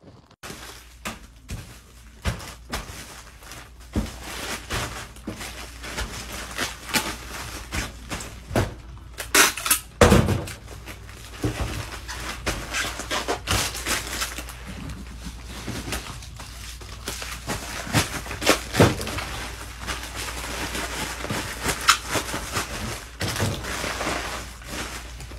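Bubble wrap and plastic packaging crinkling and crackling as an item is wrapped by hand and slid into a bubble mailer, with a couple of loud knocks about ten seconds in.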